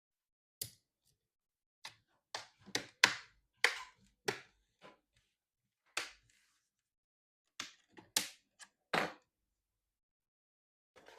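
About fifteen short, sharp clicks and knocks of plastic laptop parts being handled and snapped together, irregularly spaced, as the laptop's screen bezel and housing are fitted back on.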